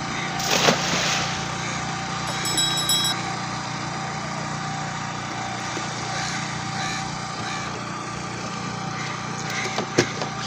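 A small engine running steadily, with a brief louder burst of noise shortly after the start.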